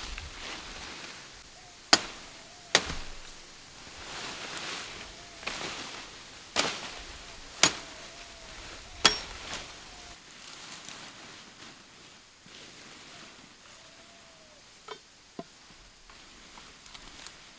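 A machete chopping through leafy branches, five sharp chops a second or so apart over the first nine seconds, with the rustle of leaves. After that the cut branches are gathered, with quieter rustling and a few light snaps.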